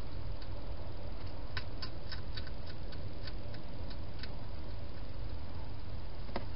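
A wild hedgehog feeding at its bowls, making a run of small sharp clicks, about four a second, for a few seconds. Near the end comes a single louder click. All of it sits over a steady low hum.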